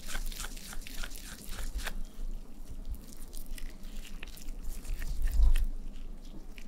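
Hands rolling seasoned raw ground beef into small meatballs, wet squishing and sticky clicking as the meat is pressed and turned between damp palms. A low thump about five seconds in.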